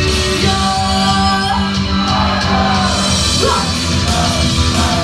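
Loud rock music played over a club PA, with a singer's held notes and a couple of sliding notes over it.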